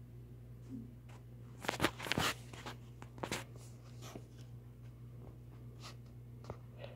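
Steady low electrical hum with a few short clicks and rustles, a cluster about two seconds in and another a second later.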